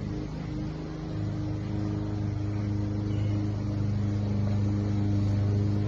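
An engine running steadily with a low, even hum, growing a little louder toward the end.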